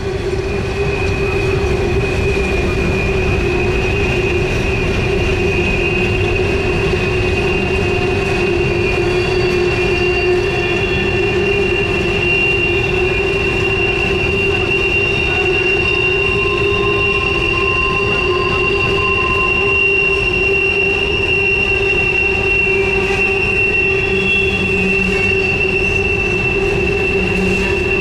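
Coal hopper cars rolling past on a tight curve, their wheels squealing in a steady high-pitched tone with a lower steady tone beneath it, over a continuous rumble of wheels on the rails. The squeal is flange squeal from the wheels grinding against the rail through the curve.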